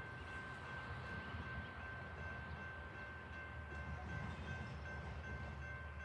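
Amtrak passenger train approaching in the distance: the diesel locomotive's low, steady rumble, with a faint steady high tone carried over it.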